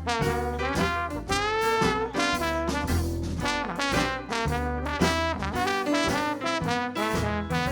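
Traditional jazz band playing an instrumental chorus: a brass horn leads with gliding, slurred notes over a steady bass line and rhythm section.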